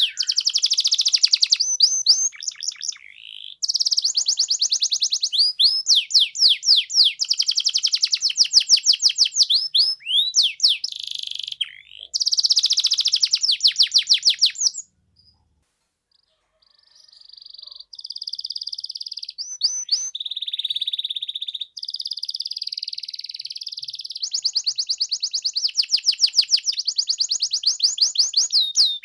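Domestic canary singing a vigorous, continuous song: fast trills of rapidly repeated sweeping notes alternating with rolled, whistled phrases. The song breaks off for about a second and a half midway, then resumes. This is the kind of full 'gacor' song played to set quiet canaries singing.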